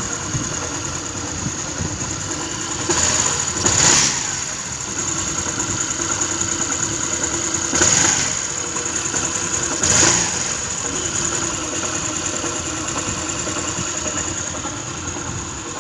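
TVS Scooty Streak scooter engine running with its clutch removed, making the noise of a failed engine (crankshaft) bearing: a steady run with a high whine and three brief louder swells. The mechanic takes this noise as a sure sign that the bearing has gone.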